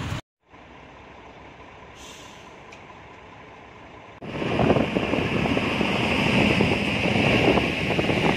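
A quiet stretch of faint background hum, then about four seconds in a sudden cut to a heavy truck running close by, loud, with a steady high hiss over the engine noise.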